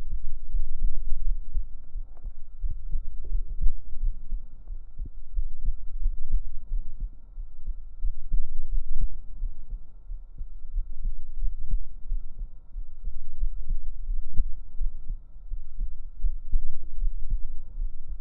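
A deep human heartbeat recorded up close against the chest with binaural microphones, beating steadily. A faint steady high hum runs underneath.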